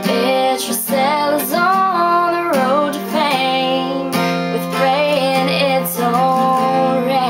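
Music: a song with acoustic guitar strumming and a voice singing held, wavering notes.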